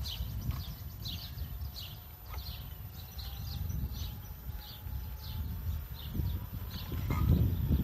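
A bird chirping over and over, about twice a second, over the low rumble of a moving mobility scooter.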